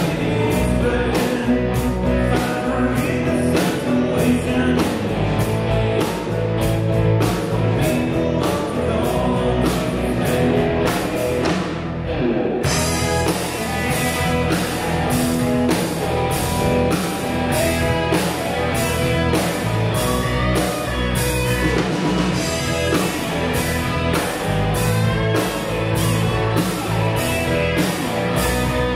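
Rock song with a steady drum beat, guitar and singing. About halfway through the sound turns brighter and fuller.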